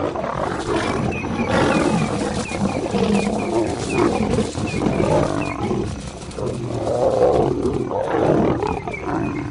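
Lions fighting: two lionesses and a male lion snarling and roaring loudly, without a break, as the lionesses fend off the male.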